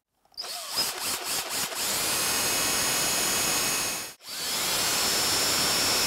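Cordless drill boring out the mounting holes in the plastic backplate of a Tesla Wall Connector. It is uneven at first as the bit bites in, then runs steadily with a high whine, stopping briefly about four seconds in before a second run.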